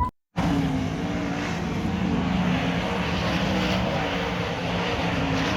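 Airplane engines running, a steady drone with a low wavering hum that starts suddenly just after a cut and keeps an even level.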